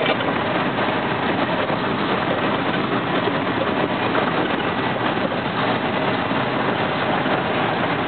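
Western Star logging truck's diesel engine running steadily as the truck drives along, with tyre and road noise from a gravel road, heard from inside the cab.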